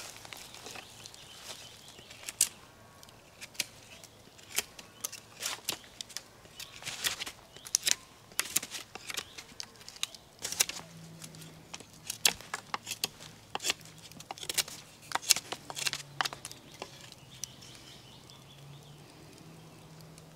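Knife whittling a point on a freshly cut holly stake: a run of short, sharp shaving cuts, sometimes several a second, that stop a few seconds before the end.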